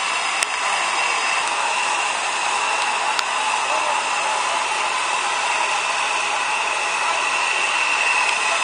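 Steady hiss of steam from steam locomotive No. 461 standing at rest, with a couple of faint clicks.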